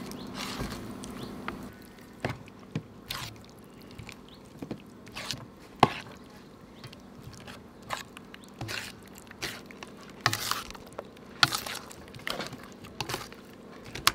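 Raw chicken drumsticks being stirred and turned in thick, wet flour batter in a metal bowl: irregular wet squelches and sharp clicks.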